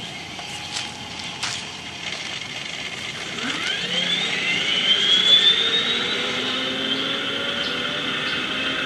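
Recorded M1A2 Abrams gas-turbine engine spooling up, played through the RC model tank's small MP3-player speaker: after a couple of clicks, a whine rises in pitch from about three and a half seconds in, then holds as a steady high turbine whine.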